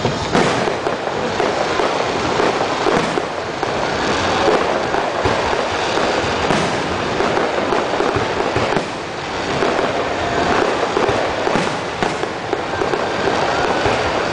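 Aerial fireworks display going off continuously: a rapid, overlapping run of booming bursts and crackling, with sharp bangs every second or so throughout.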